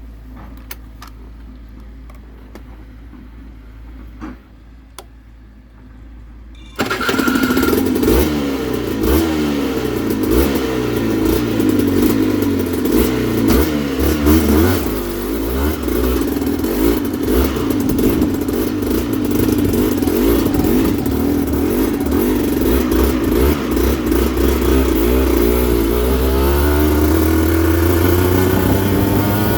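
Aprilia RS125's 125cc two-stroke single-cylinder engine starting abruptly about seven seconds in, after a few faint clicks, then running with uneven, wavering revs and revving higher near the end.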